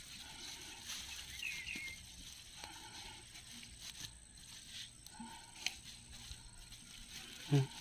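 Hands scratching and scraping through loose, crumbly soil among sweet potato vines while digging out the tubers: a faint rustle and crumble of earth with small scattered clicks. Near the end there is a brief, louder voiced sound.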